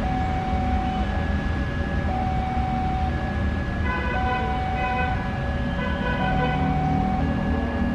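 Railway level crossing warning alarm sounding as the barriers come down: steady electronic tones that switch pitch about once a second, with more, higher tones joining in for a few seconds about halfway through, over the low rumble of waiting traffic.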